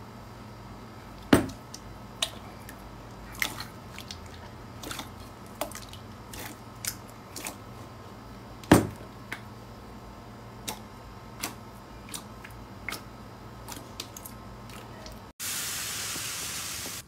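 Clear slime squeezed and kneaded by hands under water in a glass bowl: scattered wet squishes, clicks and drips, two of them much louder, one early and one about halfway. Near the end a steady hiss of tiny plastic beads poured from a bag into a glass bowl.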